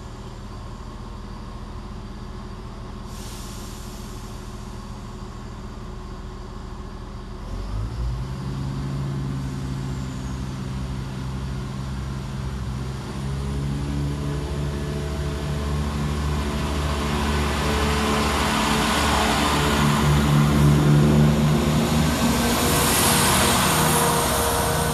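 Class 168 Turbostar diesel multiple unit with its underfloor diesel engines running. About seven or eight seconds in, the engines throttle up and the sound grows steadily louder. Near the end it peaks, with rushing wheel-and-rail noise as the unit moves along the platform.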